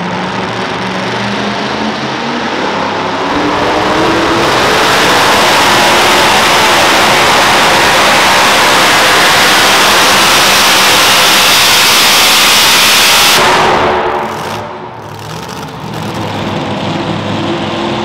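Super modified two-wheel-drive pulling truck's engine revving up, then running at full throttle for about ten seconds as it makes a pull. The engine drops off sharply near the end and then runs more quietly.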